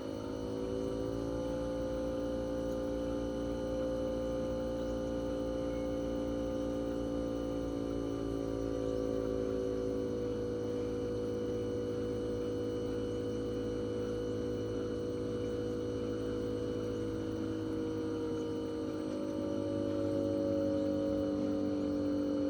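Toshiba RAS-4069AV outdoor unit's twin-rotary inverter compressor running in defrost mode with the fan stopped: a steady pitched hum, its pitch shifting slightly near the end.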